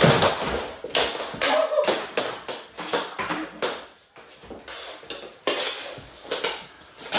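Plastic mini hockey sticks clacking against each other and slapping the hard floor in a scramble for the ball, a fast, irregular run of sharp clacks.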